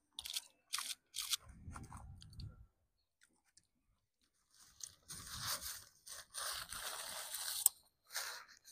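A person eating a chicken burger close to a clip-on microphone: crunching and chewing, with a few short crackles in the first second and a half and a longer stretch of dense crunching from about five seconds in.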